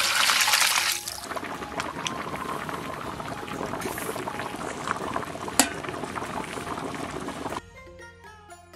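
Stir-fried sauce splashing as it is poured over pork knuckles in a large pot, then the stew bubbling steadily at a boil with light crackles and one sharp click about five seconds in. Near the end it gives way to soft music.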